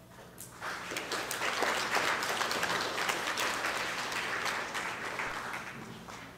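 Audience applauding: the clapping starts about half a second in, is loudest a couple of seconds later and fades out near the end.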